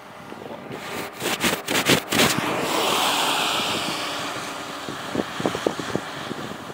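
Close thunder: a sharp crackling clap about a second in, then a rumble that slowly fades.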